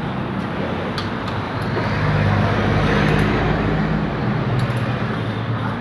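A motor vehicle engine running steadily, louder from about two seconds in and easing off near the end.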